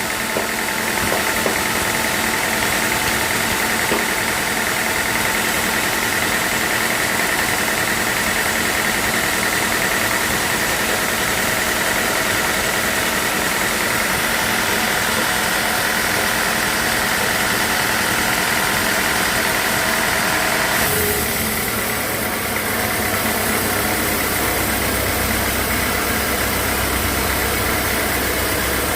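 Sawmill machinery running steadily: a constant mechanical drone with a high whine. About two-thirds of the way through the sound shifts abruptly, the whine dropping back and a deeper hum coming in.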